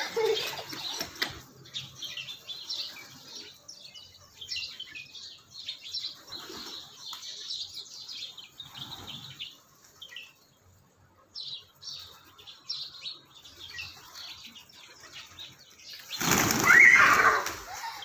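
Feral pigeons' wings clattering and fluttering in short, scattered flurries as the flock lifts off and resettles. A much louder burst comes near the end.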